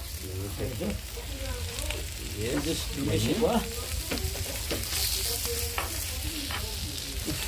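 Marinated meat and potatoes sizzling on a hot stone slab over a wood fire, with scattered sharp crackles.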